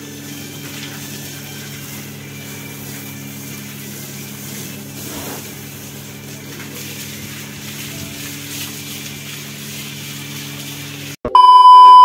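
Water from a garden hose spraying onto a car, over a steady low mechanical hum. Near the end a loud, steady test-tone beep cuts in abruptly.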